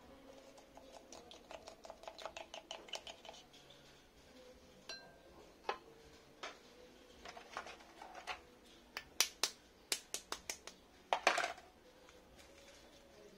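A chopstick clicking and scraping against a cracked eggshell as the raw egg is stirred and poured out, in a quick run of light ticks. Scattered clicks follow, then a cluster of sharper, louder taps near the end as another egg's shell is tapped open.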